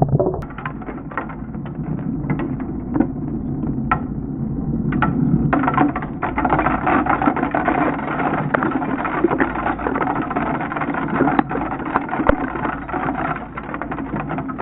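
Many small plastic LEGO bricks falling and clattering onto a board and onto each other, a dense, continuous rattle of clicks and knocks. The audio is slowed down.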